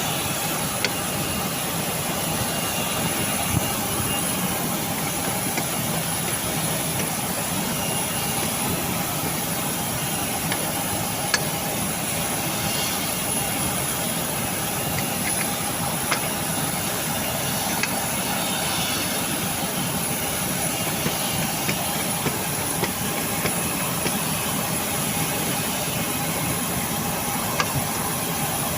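Steady machine running noise with a few faint steady tones, and scattered short clicks of small parts being handled.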